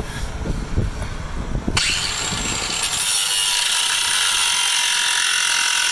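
A few handling knocks, then an angle grinder switches on about two seconds in and runs steadily, snipping off a piece of the mount's metal fitting.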